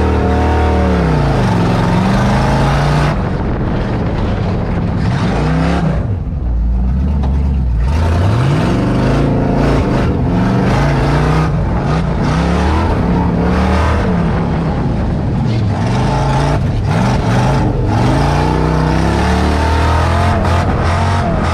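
Tuff truck's V8 engine heard from inside the cab, revving up and down over and over as the throttle is worked on a rough dirt course; it drops back briefly about a third of the way in, then climbs hard again. Knocks and rattles from the truck's body run through it, thicker toward the end.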